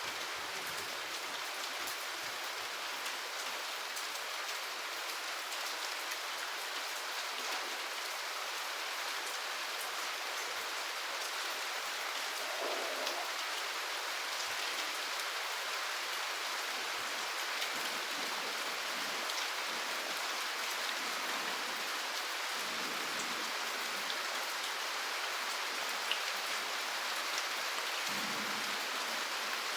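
Steady rain falling: an even hiss with fine, scattered drop ticks and no change in strength.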